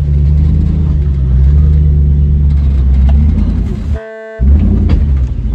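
Hemi V8 engine of a Jeep Wrangler running steadily at a low, even pitch. About four seconds in, the engine sound cuts out for a moment and a short horn-like tone sounds.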